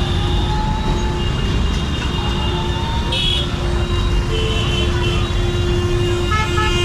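Busy street traffic: motor vehicles running close by in a steady rumble, with short horn toots, one about three seconds in and another near the end.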